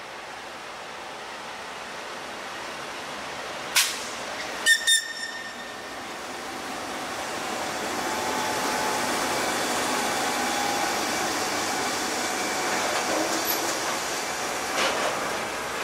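Two GE C36-7i diesel-electric locomotives with 16-cylinder engines run past, growing louder as they come by, followed by a train of rolling tank wagons. A few sharp clanks come about four to five seconds in.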